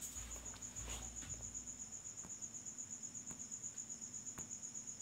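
Cricket chirping steadily, a high-pitched pulsing trill of about eight to nine chirps a second.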